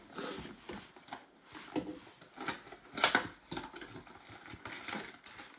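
Cardboard packaging being handled: a black cardboard box and its inserts lifted out, slid and set down, with scattered scrapes and light knocks, the sharpest about three seconds in.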